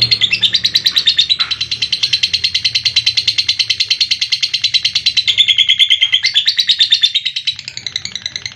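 Lovebird 'ngekek': a long, unbroken chatter of rapid shrill notes, about ten a second. It drops to a quieter run near the end, then cuts off.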